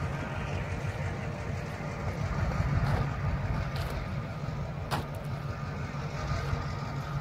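Low, steady rumble of a distant diesel locomotive hauling a passenger train, mixed with wind buffeting the microphone. There is a sharp click about five seconds in.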